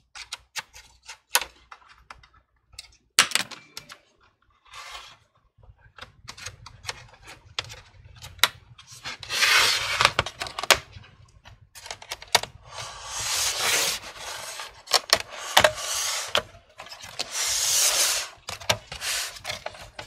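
Bottom cover of a Dell Inspiron P30E laptop being pried off by hand: scattered sharp clicks as the cover's clips let go, with three longer stretches of scraping as fingers work along the seam.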